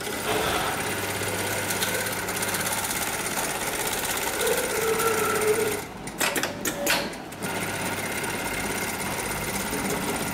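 HighTex MLK300-2516 programmable electronic pattern sewing machine stitching at high speed. About six seconds in it stops briefly with a few sharp clicks and knocks, then starts stitching again.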